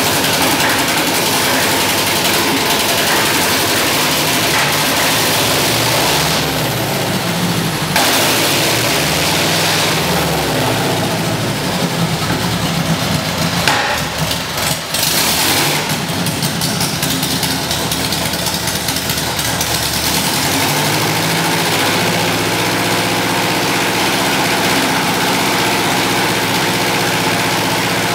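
Lycoming IO-360 four-cylinder, horizontally opposed aircraft engine running under load on an engine dynamometer, exhausting through short open stacks. Its speed shifts a few times and settles into a steady run about two-thirds of the way through.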